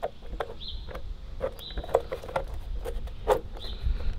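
Rubber hose being pushed and worked into a plastic car-dryer blower: a run of irregular plastic clicks and knocks, with short high squeaks recurring about once a second.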